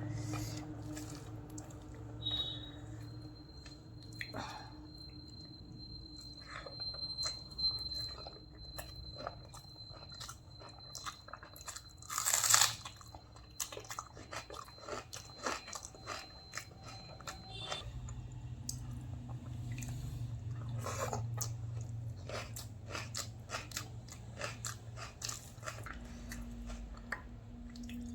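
A person eating close to the microphone: chewing, with wet mouth sounds and many small crunches, and one louder crunch about twelve seconds in.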